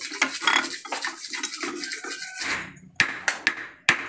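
Scraping and rubbing of metal parts as a tight Suzuki Escudo steering-column bushing is worked loose, then four sharp knocks from about three seconds in as it is struck to drive it out.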